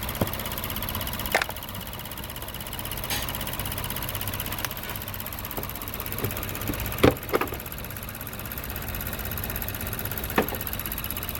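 Lexus GS350's V6 engine running steadily, with a few short clicks or knocks spaced through it.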